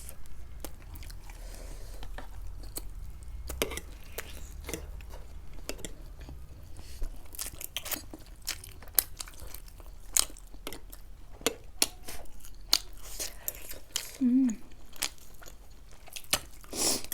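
Close-miked eating: chewing and crunching with many sharp wet mouth clicks, irregular throughout.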